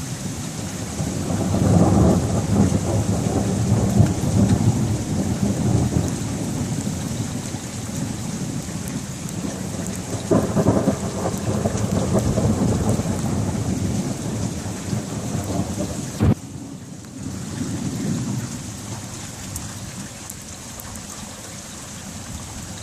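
Thunder rumbling in long rolls over steady rain hiss, two big swells of rumble then a weaker one near the end, with a single sharp crack about two-thirds of the way through.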